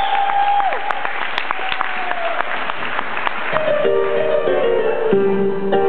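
Live stage music: a held sung note ends under noisy crowd sound and scattered claps. Then steady held keyboard chords come in about halfway and shift lower near the end.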